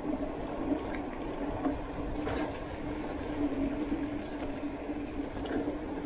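Carraro Daytona 930 mountain bike rolling along a rough paved road: a steady hum from its knobby tyres under a low rumble of wind on the microphone. A few sharp clicks and rattles from the bike are scattered through.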